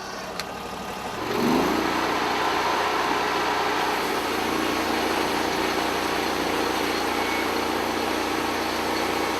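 Portable sawmill engine speeding up about a second in, its pitch rising, then running steadily at high speed.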